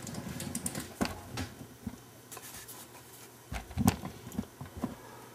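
Handling noise from a camera being picked up and repositioned: scattered clicks, knocks and rubbing, the loudest knock about four seconds in.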